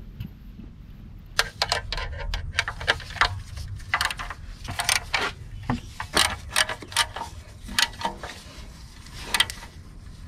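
Ratchet and socket extension clicking and clinking against metal engine parts: a run of sharp, irregular clicks that starts about a second and a half in.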